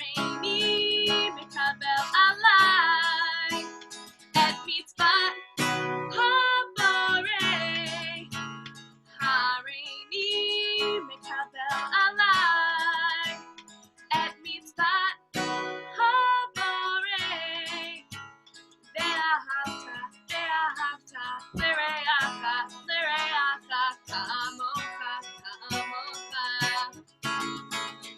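A song sung to a strummed acoustic guitar, in phrases with short breaks between them.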